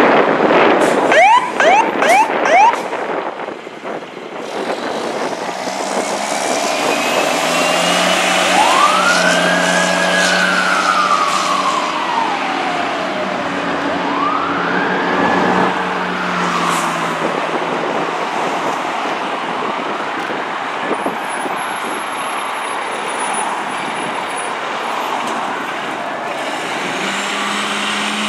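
Fire engine siren on a departing fire apparatus: a few quick rising yelps, then a slow wail that rises and falls about every five seconds and grows fainter as it moves away, over a diesel engine running.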